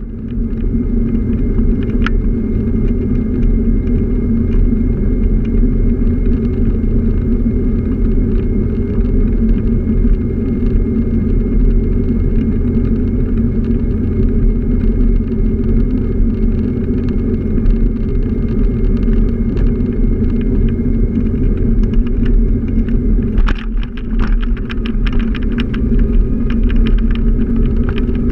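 Scooter running steadily along a street, its motor and the road giving a continuous low rumble. About 23 seconds in the rumble briefly drops, then a few seconds of light rattling clicks follow.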